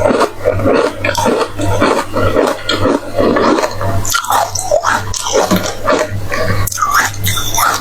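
Close-up crunching and chewing of powder-coated ice cubes: rapid, irregular crisp bites, with a steady low hum underneath.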